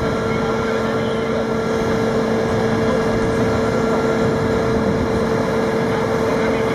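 An engine running steadily with a constant whine over a low rumble, unchanging throughout.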